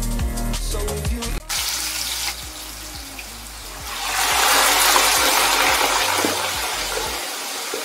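Background music with a beat for the first second and a half, then hot cooking oil sizzling in a pan. About four seconds in, the sizzle surges loudly as parboiled potato chips go into the oil for deep-frying, then slowly eases.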